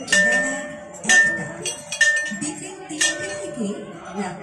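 Metal temple bell struck four times, about once a second, each strike ringing on with a clear high tone.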